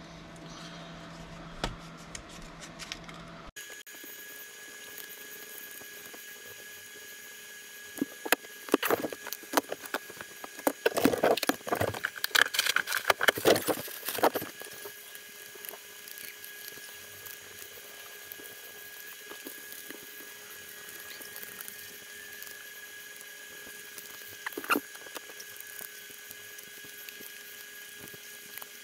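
Rummaging on a workbench: a plastic bag rustles and small items click and clatter in a busy spell of several seconds, with a single click later. A steady hum runs underneath.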